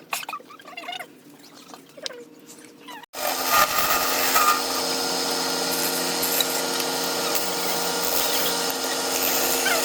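Wood lathe running with a steady hum while a turning tool cuts the spinning wood, starting abruptly about three seconds in. Before that, faint scattered scratching and squeaks.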